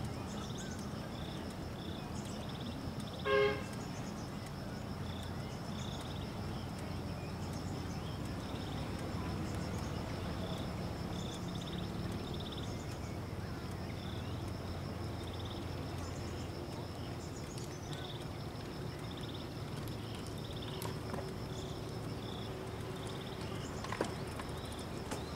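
A single short horn toot about three seconds in, above a steady low rumble, with a thin high buzz and faint repeating chirps behind it.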